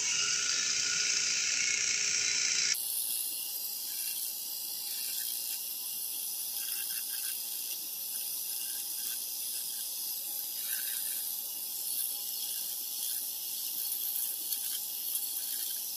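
ENCHEN Blackstone 3 rotary electric shaver running with its pop-up trimmer cutting stubble: a steady motor hum with a faint crackle of hair being cut. It is louder and hissier for the first few seconds, then changes abruptly about three seconds in and stays steady.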